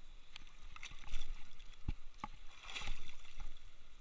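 Sea water sloshing and lapping close to the microphone, with a few sharp knocks and clicks from handling, the sharpest about two seconds in.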